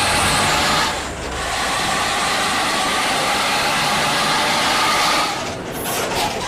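A bus running on the road: a steady rush of engine and road noise with faint steady tones. It dips briefly about a second in and falls away after about five seconds.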